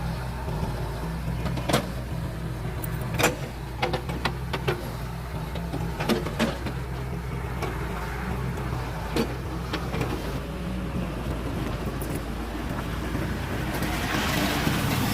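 A heavy engine running steadily at a low pitch, with scattered sharp knocks and clanks over it and a rising rush of noise near the end.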